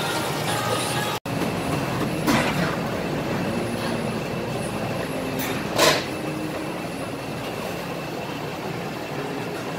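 Steady rushing roar of commercial kitchen equipment, with two sharp metal clanks as the lid of a large stainless-steel drum roasting oven is handled. The louder clank comes about six seconds in.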